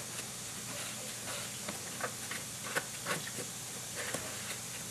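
Scattered light clicks and taps of a hand tool tightening the bolts on a riding mower's air-filter cover, over a steady background hiss and low hum.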